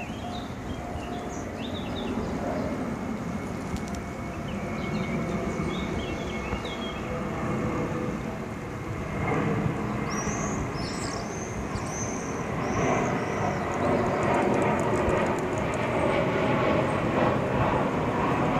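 Jet airliner descending to land, passing overhead. Its engines make a broad rumble that grows steadily louder as it comes nearer.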